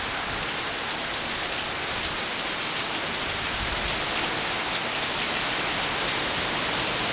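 Heavy rain falling steadily in a windy storm, growing slightly louder toward the end.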